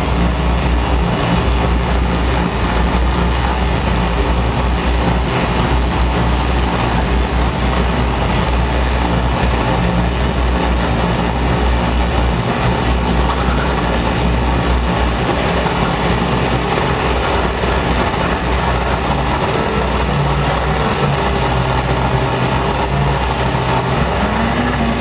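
Live experimental drone music from an electric organ and a modular synthesizer: a loud, steady, dense noisy drone with heavy low bass. Near the end a low tone bends up and back down.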